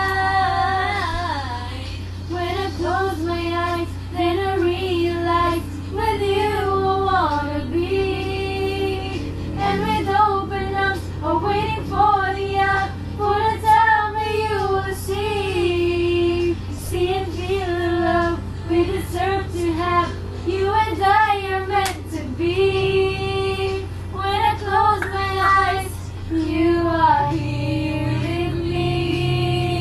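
A girl's voice singing a song, with long held notes that step up and down in pitch, over a steady low hum.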